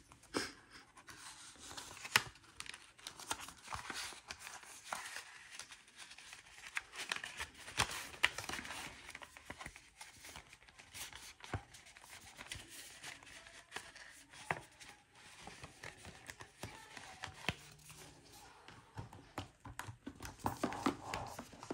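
Paper banknotes and paper envelopes being handled: soft rustling and crinkling with scattered small taps and clicks as cash is sorted and stuffed into envelopes.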